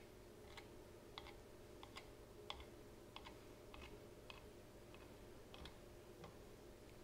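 Faint, light taps of a serrated paring knife cutting through a rope of potato gnocchi dough and striking the cutting board, about a dozen cuts at an uneven pace of one or two a second.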